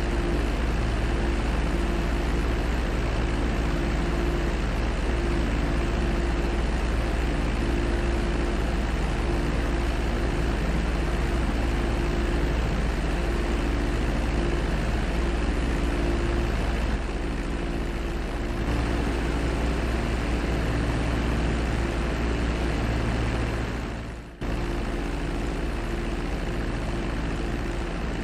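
Steady drone of propeller aircraft engines. About three-quarters of the way through it drops out for a moment and comes straight back.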